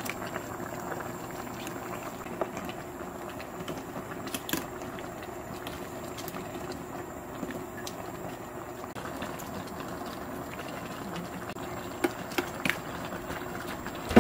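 Spicy seafood tteokbokki sauce simmering and bubbling steadily in a stainless steel tray, with a few light clicks of a metal ladle against the pan.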